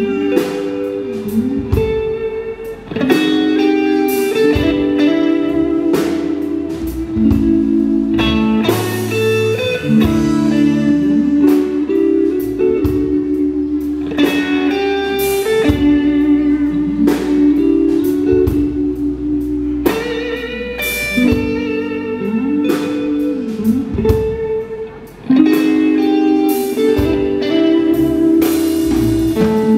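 Live rock band playing an instrumental passage: a lead electric guitar line over bass guitar, a second electric guitar and drum kit, with no vocals. The band drops back briefly twice, once early and once near the end.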